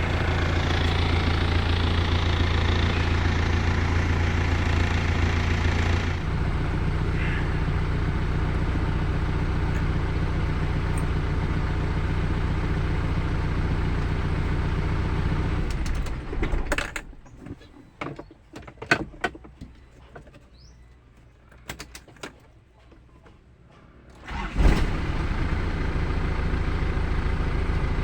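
Car engine idling steadily, then switched off about 16 seconds in. A few light clicks follow in the quiet, and then the engine cranks and catches at once with a brief surge and settles back to a steady idle. The quick start is a sign that the hard-start fault has been fixed.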